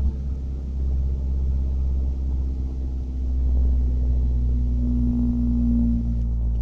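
1991 Ford Ranger's engine running, its pitch and level rising and falling a little as the revs change.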